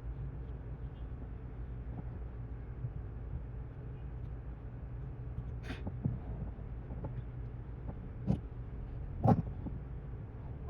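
Steady low hum with three short, sharp clicks, about five and a half, eight and nine seconds in, the last the loudest.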